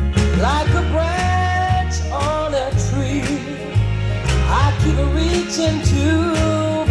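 A song played back through a single-ended triode tube amplifier and loudspeakers: a singing voice with sliding pitches over a bass line and regular drum hits.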